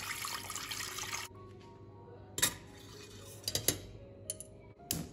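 Tap water pouring into a stainless steel pot, stopping about a second in. A folding stainless steel steamer basket is then set into the pot, clinking against the metal several times.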